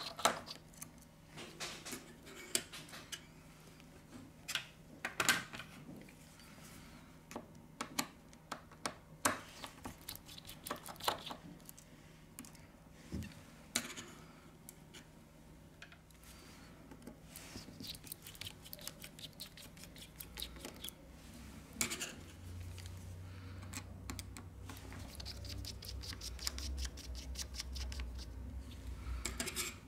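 Faint, scattered clicks and small scrapes of a precision screwdriver working the tiny motherboard screws of a Sony Xperia M2 phone, with gloved hands handling the phone. In the last several seconds a low rumble comes in, along with a quick run of faint ticks.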